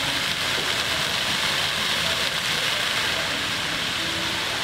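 Ground-level spray fountain jets shooting up and splashing back onto wet pavement: a steady hiss of falling water.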